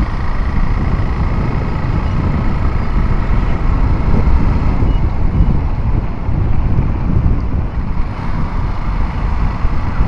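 Steady wind buffeting on the microphone of a moving motorcycle, a loud continuous rumble with the bike's running mixed underneath.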